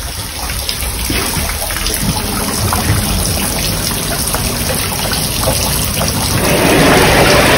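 Running water trickling and splashing, swelling into a louder, steady rush about six seconds in.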